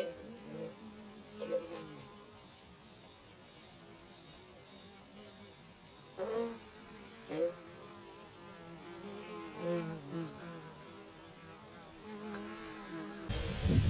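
Honeybees and a yellowjacket wasp buzzing, a low faint hum that swells into short louder buzzes several times as they fly close. A louder rush of noise starts just before the end.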